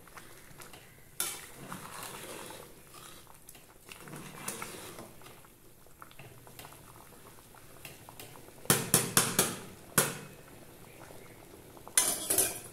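Sambar rice bubbling at the boil in an open aluminium pressure cooker while a steel ladle stirs it. Around nine seconds in, a quick run of sharp metal clanks as the ladle knocks against the pot, and another cluster near the end.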